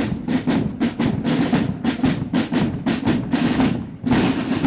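Student drum corps snare drums playing a rapid marching cadence with drum rolls, with a dense roll about four seconds in.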